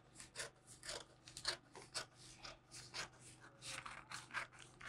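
Scissors cutting through a paper pattern: a steady run of short, faint snips, about four a second.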